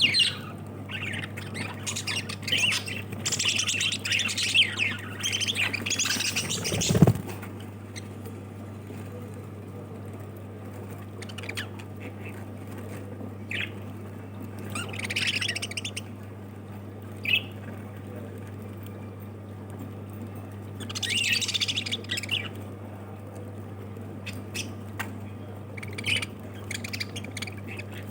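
Pet lovebirds squawking and chirping in busy bursts: a flurry in the first several seconds, then scattered calls with quieter gaps. A single loud bump about seven seconds in, over a steady low hum.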